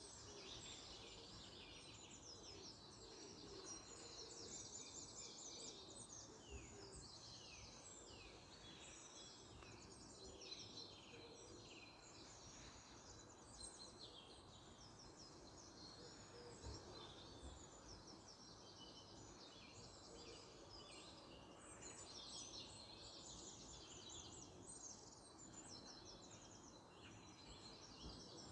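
Faint birdsong chorus: several small birds chirping and trilling continuously, over a low, steady background hum of outdoor noise.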